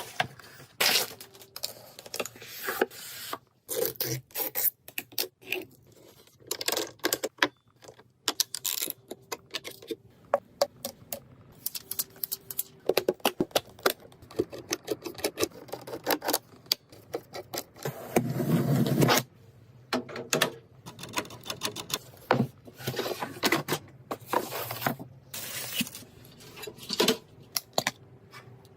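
Irregular clicks, taps and scrapes of computer parts being handled and fitted together during a PC build, with a louder scraping rush lasting about a second about two-thirds of the way through.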